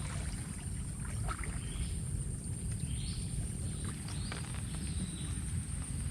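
Stream-side outdoor ambience: a steady low rumble of running water, a constant high insect drone, and a few faint bird chirps.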